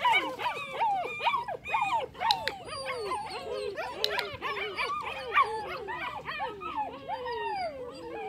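Eight-week-old puppy whining and yelping: a rapid, continuous string of high cries that slide up and down in pitch, overlapping one another.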